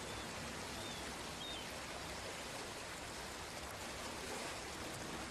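Steady, even wash of open lake water ambience, with a few faint short high chirps in the first second and a half.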